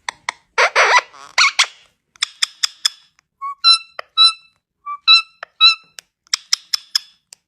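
Pet parrot calling: a harsh squawk, then runs of sharp clicks and short whistled chirps in pairs.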